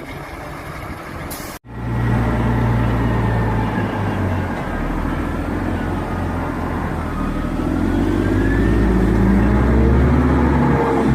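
Remote-control construction models running: after an abrupt cut about a second and a half in, a steady low engine-like drone with a fainter whine that rises and falls.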